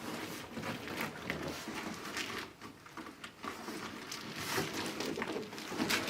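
A heavy cardboard box being moved and handled: irregular rustling, scraping and light knocks of cardboard.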